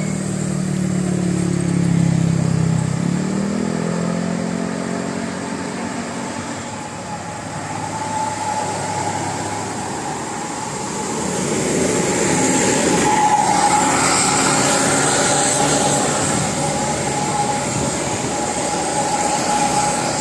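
Large road vehicles passing close by: an engine's drone falls in pitch as one goes by in the first few seconds. Steady traffic noise with a faint high whine follows.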